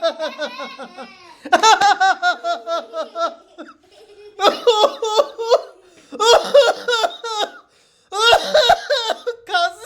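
A person laughing heartily in about five bouts, each a rapid string of high-pitched ha-ha pulses, with short breaths between them.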